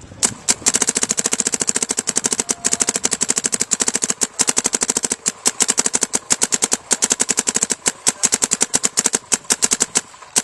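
DLX Luxe 2.0 paintball marker firing long, fast strings in semi-automatic, many sharp pops a second with a few brief breaks.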